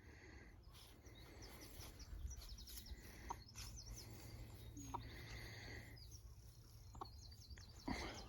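Faint outdoor ambience with scattered high chirps and short trills of birds.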